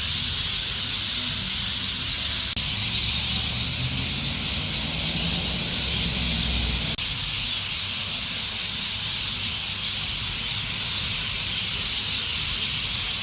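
A huge flock of lorikeets screeching and chattering all together, a dense, continuous high-pitched din, with a low rumble underneath.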